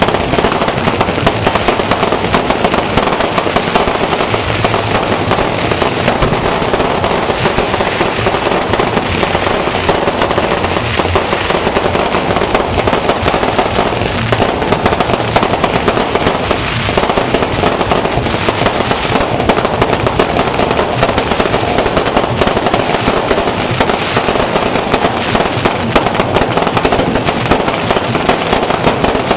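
Fireworks going off in a dense, continuous barrage, many bangs and crackles packed close together without a pause.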